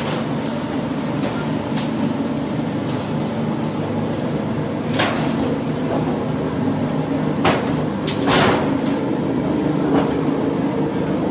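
Roofing-sheet roll forming machine running, its forming rollers turning with a steady drone. Sharp metallic knocks come now and then, the loudest about five seconds in and twice more around seven and a half to eight seconds in.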